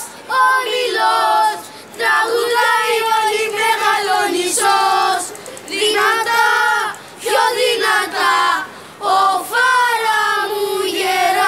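A group of boys singing together in unison, in loud, held phrases broken by short pauses.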